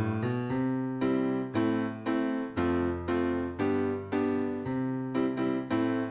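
Solo piano playing a song's introduction: chords struck in a steady rhythm, about two a second.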